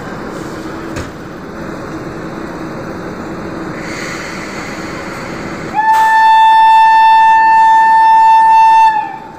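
WAP-5 electric locomotive horn sounding one long blast of about three seconds, starting about six seconds in: a single steady note that sags slightly in pitch as it cuts off. Before it there is a steady low hum and one brief knock about a second in.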